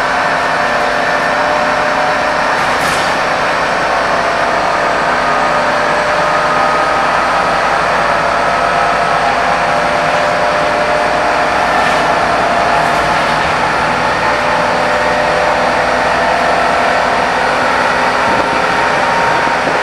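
Scania K230UB bus's rear-mounted five-cylinder diesel engine running steadily under way, with road and tyre noise, heard from inside the saloon.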